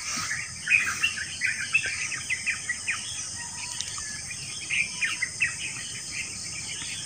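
Birds chirping in quick runs of short calls, thinning out after about five seconds, over a steady high drone of insects.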